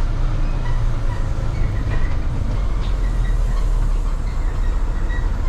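Semi-truck's diesel engine and tyres giving a steady low rumble while driving slowly, with a few faint knocks.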